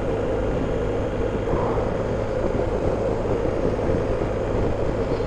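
Steady wind rush and engine drone from a BMW R 1250 GS Adventure's boxer twin at a constant cruising speed, recorded on board.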